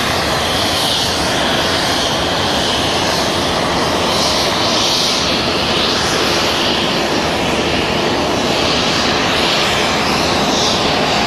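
Railway passenger carriages rolling past close by: a steady, loud noise of steel wheels running on the rails.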